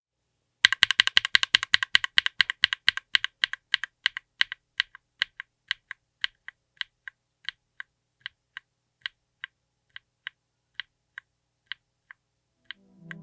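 Mechanical keyboard with Epomaker Peace Lily linear switches on an FR4 plate being typed on: a fast run of keystrokes starts under a second in, then thins out to single keystrokes about half a second apart by the end.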